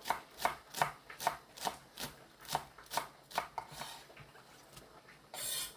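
Chef's knife slicing green onion thinly on an end-grain wooden cutting board: about ten even chops, two or three a second, that stop about four seconds in. A short scraping noise follows near the end.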